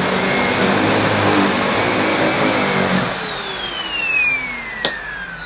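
Sebo Felix Pet ePower upright vacuum cleaner running on carpet. About three seconds in it is switched off, and its motor whine falls steadily in pitch as it spins down. There is a short click near the end.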